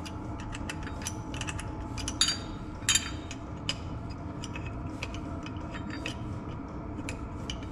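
Small metallic clicks and clinks of a Garrett T04E turbocharger being taken apart by hand, with louder clinks about two and three seconds in.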